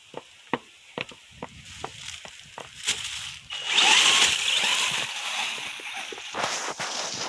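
Light clicks for the first few seconds, then from about halfway a loud, hissing rush as the ZD Racing ZMT10 RC monster truck is driven off across grass and dry leaves, its electric motor running and its tyres throwing up debris.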